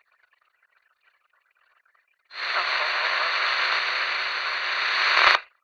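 Police radio breaking squelch about two seconds in: a loud burst of static hiss with no clear words, holding for about three seconds and then cutting off sharply.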